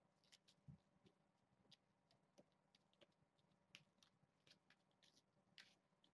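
Near silence: room tone with faint, irregular light ticks and clicks scattered throughout.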